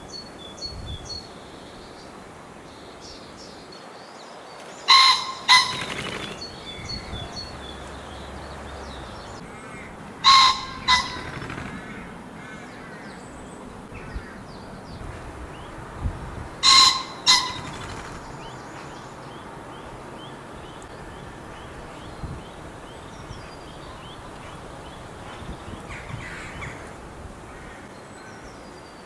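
Cock common pheasant crowing: three loud two-note calls about six seconds apart, each a harsh double bark. Fainter high chirps of small songbirds sound between the calls.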